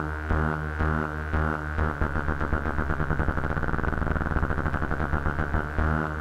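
Moog Werkstatt-01 analog synthesizer holding one low, buzzy note that pulses about twice a second. About two seconds in, the pulsing speeds up into a rapid flutter as a knob on the synth is turned, then slows back to the steady pulse near the end.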